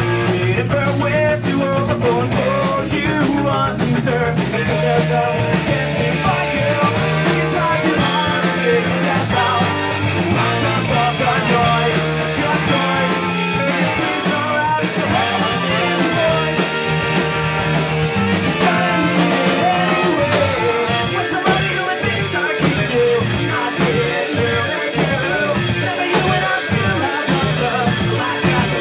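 Ska-punk band playing a song live, loud and steady throughout.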